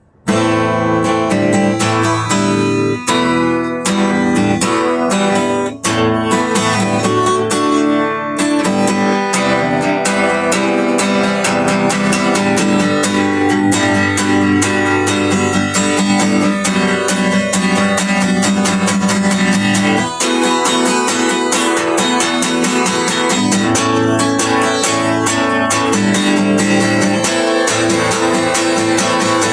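Music led by a strummed acoustic guitar, playing steadily throughout.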